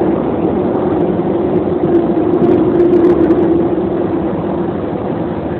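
Running noise of a Chicago 'L' train car heard from inside: a steady rumble with a humming tone that swells about three seconds in and then fades.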